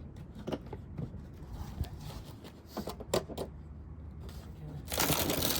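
Car emergency kit being handled: scattered knocks and clicks, then a loud rasping noise about half a second long near the end as the kit is opened.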